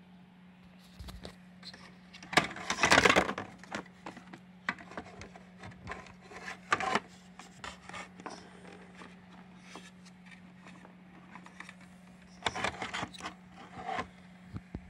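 Hands fitting the plastic housing and parts of an Electrolux UltraOne vacuum cleaner back together: scattered plastic clicks, knocks and scrapes, with louder bursts of rattling and scraping about two to three seconds in and again near the end. A steady low hum runs underneath.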